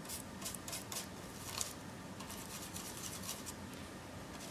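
Stiff-bristled stencil brush working paint over a plastic stencil: a faint, irregular run of short scratchy bristle strokes, a few a second.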